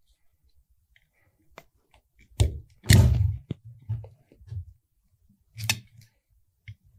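Utility knife slitting and scoring the plastic jacket of 14-gauge Romex cable, then the sheath being worked loose and pulled off by hand: a few short scraping and rustling sounds, the loudest about three seconds in, with smaller ones after it and one more near the end.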